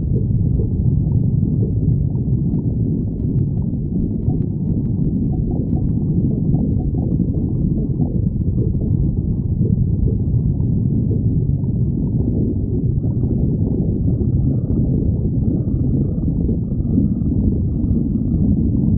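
Stomach growling from hunger: a continuous low, gurgling rumble of the gut with no pause.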